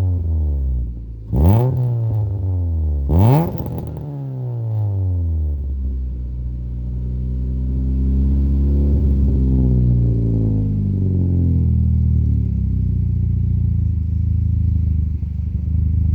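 Chevrolet Cobalt SS supercharged 2.0-litre four-cylinder through a 3-inch catless midpipe and Vibrant muffler. It is blipped sharply twice in quick succession, each rev climbing fast and dropping back, then it runs on with a slower swell in revs that rises and settles back.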